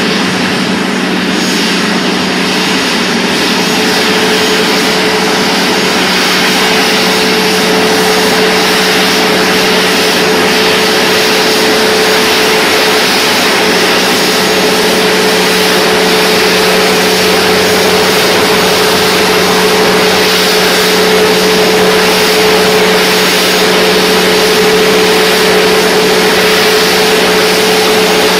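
Sukhoi Superjet 100 jet airliner running at idle on the apron: a loud, steady jet rush with a steady whine and a lower hum under it.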